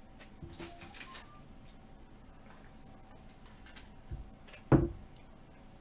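Trading card packs and boxes being handled on a table: brief rustling of wrapper about half a second in, then a light thump and, near the end, a single sharp knock, the loudest sound.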